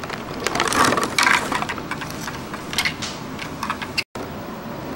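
Thin clear plastic blister tray crackling and clicking as an action figure is pulled out of it by hand.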